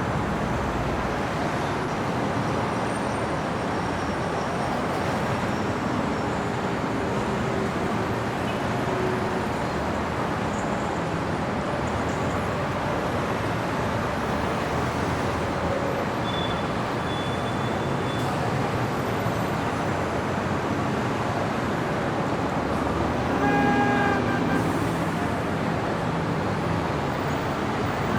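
Steady city street traffic: a constant wash of cars passing. A vehicle horn sounds once, briefly, about three quarters of the way through.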